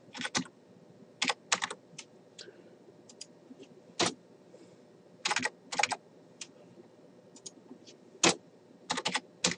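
Keystrokes on a computer keyboard: scattered single taps and short runs of two or three, with pauses of up to a second, as numbers are typed into form fields.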